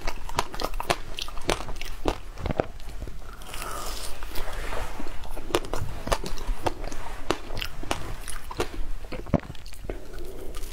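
Close-miked biting and crunching on a frozen corn cob: many sharp, separate crunches, with chewing between bites.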